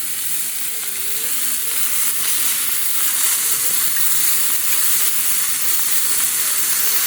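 Hamburger patties sizzling as they fry in a hot pan: a steady, dense hiss of spitting fat.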